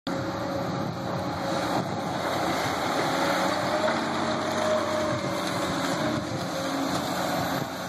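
Caterpillar long-reach track hoe's diesel engine running steadily under load as the machine dumps rock and swings its boom, with a faint whine that rises slightly around the middle and settles back.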